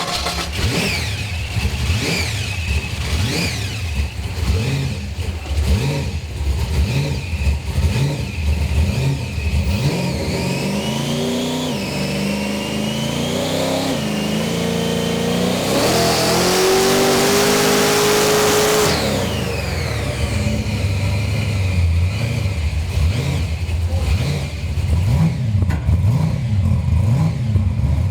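Roots-supercharged V8 of a Ford XA Falcon coupe, blipped at an uneven idle, then revved hard in three rising runs, the last and longest lasting about five seconds with a loud hiss on top. It then drops back to idling with more blips.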